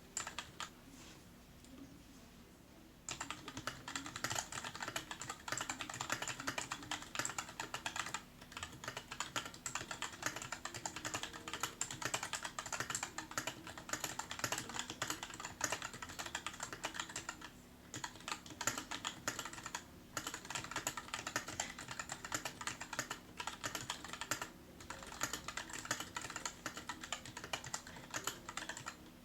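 Typing on a stock, unmodded Keychron K2 v1 mechanical keyboard: a fast, continuous clatter of keystrokes that starts about three seconds in after a couple of lone key presses, broken by a few brief pauses.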